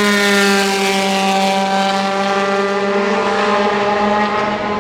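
Ferrari F430 GT2 race car's flat-plane V8 running at steady revs, one sustained engine note whose pitch dips slightly over the first couple of seconds and then holds.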